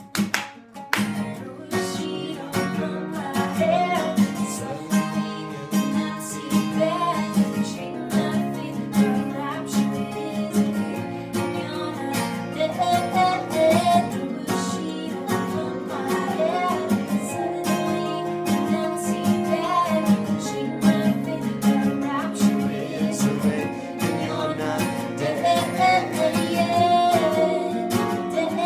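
Two acoustic guitars strummed together in a steady rhythm while a woman sings the melody. A few sharp hand claps come right at the start.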